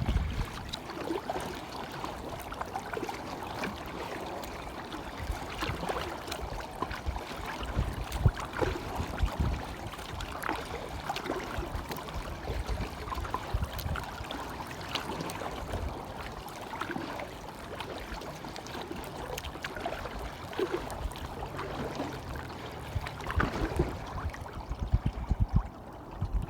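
Water splashing and trickling as a kayak is paddled, with irregular drips and slaps of water against paddle and hull. Low gusts of wind buffet the microphone now and then.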